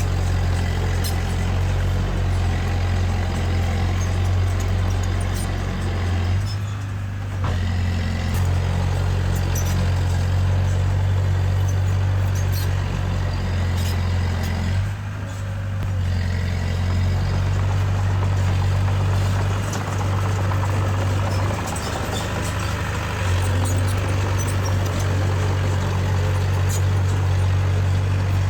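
Heavy earthmoving machine's diesel engine running steadily under work, with a deep even hum. Its level dips briefly twice, about a quarter and about halfway through.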